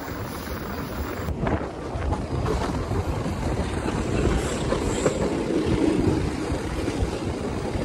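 Wind buffeting a microphone held outside a moving Argo Parahyangan intercity passenger train, over the train's running noise. The rush grows louder a little after the first second and then holds steady.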